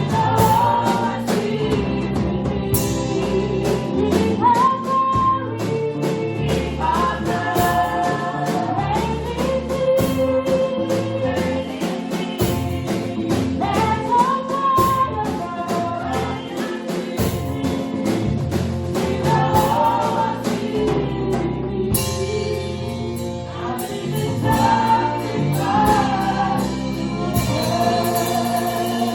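Gospel choir singing with instrumental backing and regular percussion strokes.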